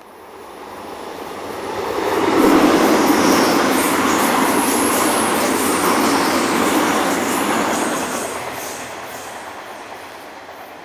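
Hamburg S-Bahn electric multiple unit passing close by. The rumble of wheels on rail swells over about two seconds, stays loud for several seconds with a brief high wheel squeal, then fades as the train moves away.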